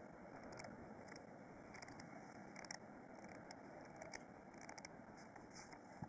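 Paper pages of a small notebook being turned by hand: soft, crisp rustles and flicks, a few sharper ones about two and a half seconds in and near the end, over a faint steady hiss.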